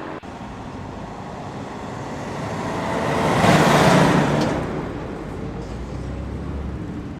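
A car driving past: a rushing vehicle noise that builds up, peaks about four seconds in, then fades away.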